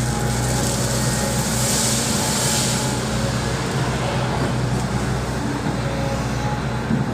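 Volvo EC200D excavator's diesel engine running steadily under work, a constant low hum with a brief rise in hissing noise about two seconds in.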